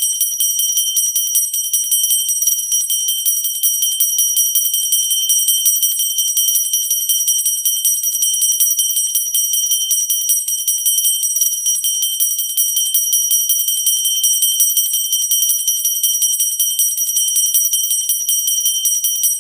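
A pooja bell rung rapidly and without pause, its clapper striking many times a second, giving a steady, high, bright ring.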